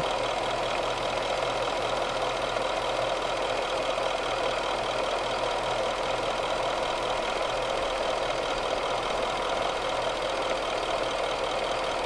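2013 Jaguar XKR's 5.0-litre supercharged V8 idling steadily, heard close up under the open bonnet with the air conditioning on during a refrigerant recharge.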